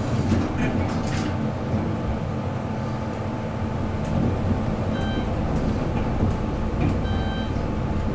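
Schindler-modernized Haughton traction elevator car travelling down, with a steady low rumble and hum. Short electronic beeps sound twice partway through.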